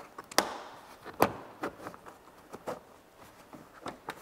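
Plastic interior kick panel of a 1990 GMC K1500 being handled and pressed into place: a series of sharp plastic clicks and knocks, the loudest two about half a second and a second and a quarter in.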